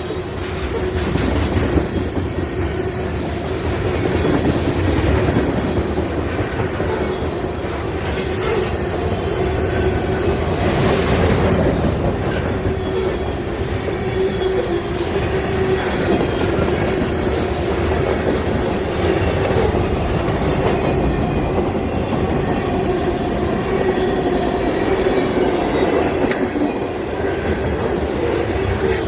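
CSX manifest freight train rolling past, its wheels clicking over the rail joints, with a steady ringing tone from the wheels on the rail.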